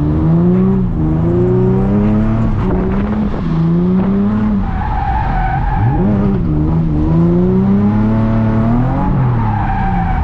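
Nissan 350Z's 3.5-litre V6 revving up and down through drifts, its pitch falling sharply about six seconds in and then climbing again. Tyres squeal on the wet road for a second or two past the middle and again near the end.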